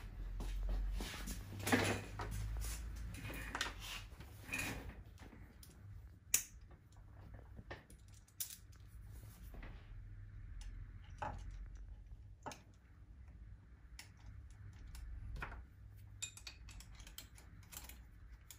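Scattered metallic clinks and knocks of metal parts being handled: washers and screws picked up and a four-jaw chuck being fitted against the rotary table's faceplate.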